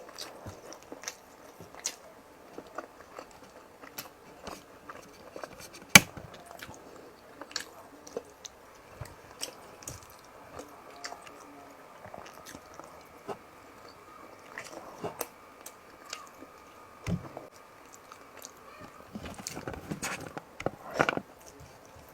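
Close-miked mukbang eating sounds: chewing and wet mouth smacks with many small clicks as fish and rice are eaten. One sharp click comes about six seconds in, and there is a busier burst of chewing near the end.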